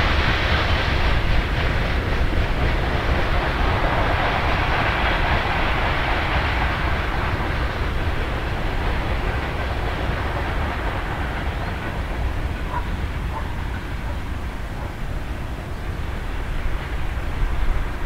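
Freight train running past: a steady rumble of wagon wheels on the rails, with a hiss that fades gradually as the train draws away.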